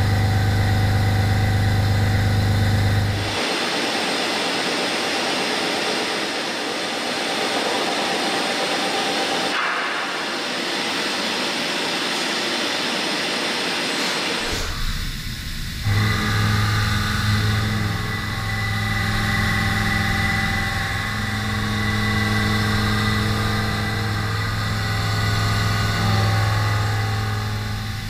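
Hüller Hille NBH horizontal machining centre at work. Its spindle and drives run with a steady low hum and whine. After about three seconds this gives way to a long, steady hiss for some eleven seconds, then the humming, whining machining sound comes back for the rest.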